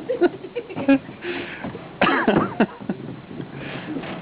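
A child coughing a few times, with a short vocal sound in between, as the heat of a chewed habanero pepper catches in the throat.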